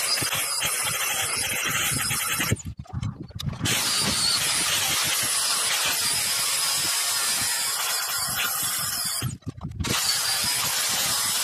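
Angle grinder grinding a steel knife blade made from an old chisel plow, a steady grinding noise. The sound cuts out abruptly twice, for about a second each time, a little over two seconds in and again about nine seconds in.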